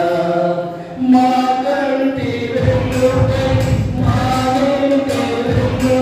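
A small group of singers singing a Telugu hymn into microphones, with a short break in the line about a second in. A deep low sound joins under the voices after about two and a half seconds.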